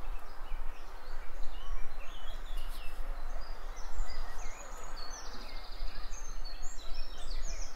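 Outdoor ambience: birds chirping and calling, with a quick trill about five seconds in, over a steady hiss of background noise and a low rumble.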